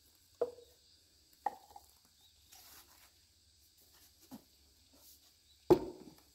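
Hollow knocks of plastic plumbing pipe and fittings being handled and pushed together: four knocks, the last the loudest, near the end.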